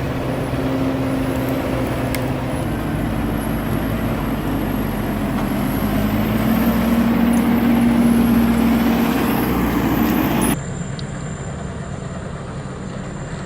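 Heavy engine running under load. Its note rises and strengthens for a few seconds, then breaks off abruptly about ten and a half seconds in, giving way to a quieter engine sound.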